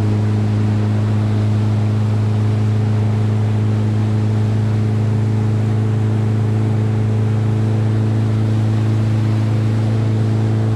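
Motorboat engine running at a steady speed under way: one even, unchanging hum, with water and wind noise under it.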